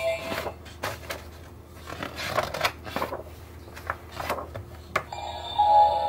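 Stiff picture-book pages being turned and handled: paper rustling with several light knocks and taps. About five seconds in, after a sharp click, a sound book's electronic tune starts playing.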